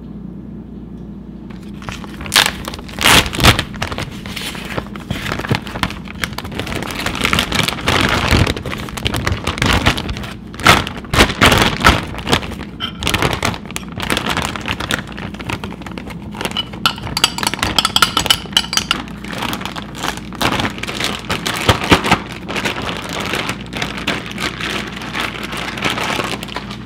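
Plastic zip-top bag crinkling and rustling in irregular bursts as raw pork ribs and marinade are worked inside it, starting about two seconds in, over a low steady hum.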